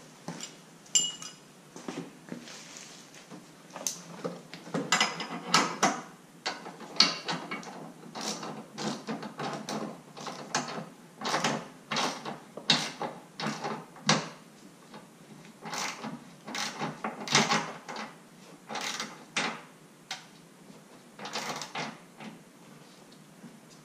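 Hand ratchet and wrench clicking and clattering in irregular short runs as the light bar's mounting bolts are tightened behind the bumper.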